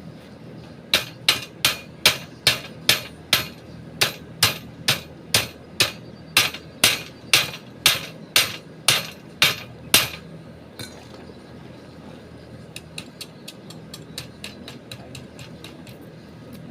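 Hammer blows struck repeatedly at about two a second for roughly nine seconds, with one short pause, then stopping; a run of faint, quicker light ticks follows near the end.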